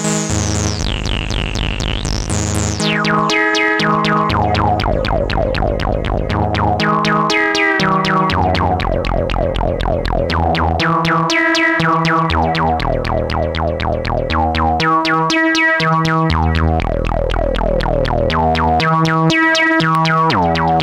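PAiA Fatman analog synthesizer playing a fast repeating note pattern over bass notes that change every second or two, its filter sweeping down again and again.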